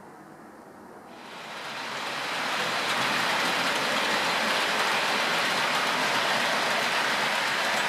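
OO gauge model trains running on the layout, an InterCity HST among them: a steady rushing hiss of wheels rolling on the rails that fades in over the first couple of seconds.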